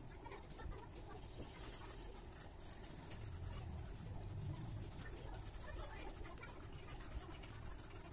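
Red coloured pencil scratching on paper in quick, repeated shading strokes, faint over a low steady hum. The strokes grow denser about a second and a half in.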